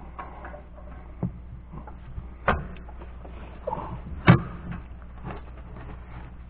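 Metal tool clinks as an oxygen-sensor socket is fitted over the O2 sensor in an exhaust manifold: a few sharp knocks, the loudest about four seconds in.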